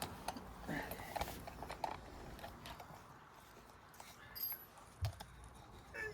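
Scattered light clicks and taps of sofa parts and hardware being handled during flat-pack furniture assembly, with a dull thump about five seconds in.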